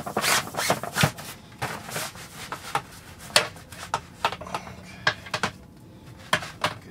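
Teton XXL camp cot being assembled: the black cot fabric rubs and scrapes as a metal end pole is worked through its sleeve, with scattered clicks and knocks of the pole against the frame.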